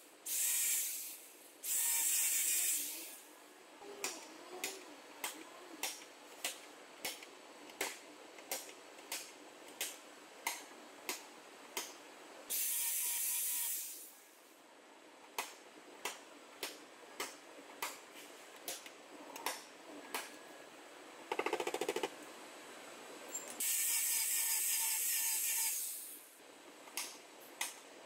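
Small angle grinder spinning in short bursts, sanding paint off spots on a steel car quarter panel down to bare metal. Between the bursts come regular sharp ticks, about one and a half a second.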